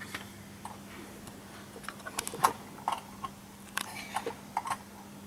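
Scattered light clicks and taps from a computer keyboard and mouse being handled, over a faint steady hum.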